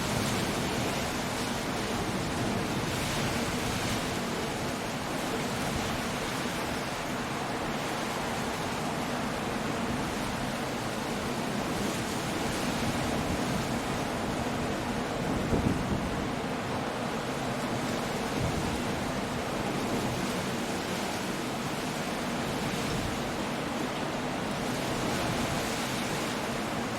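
Coastal storm ambience: surf breaking on a rocky shore under steady wind, a continuous even rush of noise with one brief louder surge about halfway through.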